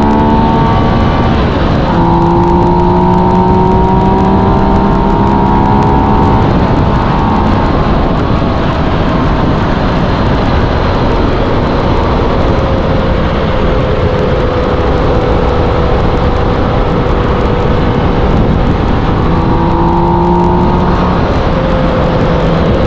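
Yamaha MT-09's inline-three engine running steadily under way, its pitch drifting gently up and down, under a heavy, even rush of wind over the microphone.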